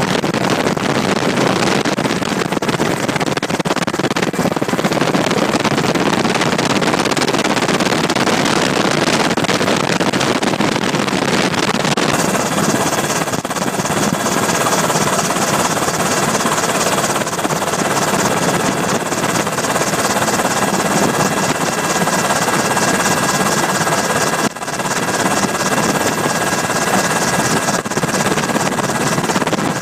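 Cabin noise of a UH-60 Black Hawk helicopter in flight: a loud, steady rush of rotor and turbine noise, with a thin high whine joining about twelve seconds in.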